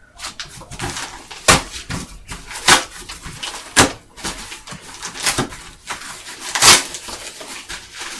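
Cardboard game box and its packaging being handled and opened, giving irregular knocks, scrapes and rustles, with about five or six louder knocks spread through.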